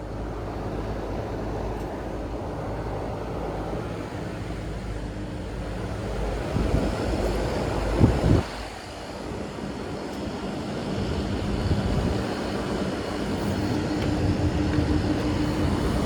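Carrier air-conditioning unit running in first-stage cooling, a steady mechanical hum with a few steady tones. A short loud clatter comes about eight seconds in, and the noise grows louder near the end.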